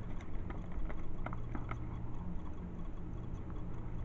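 Handling of a knife in a leather sheath: scattered light clicks and taps, most of them in the first two seconds, over a low steady hum.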